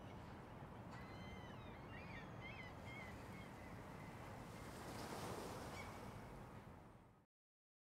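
Faint coastal ambience: a steady rush of wind and surf with a few short bird chirps in the first few seconds, swelling slightly about five seconds in, then fading out to silence just before the end.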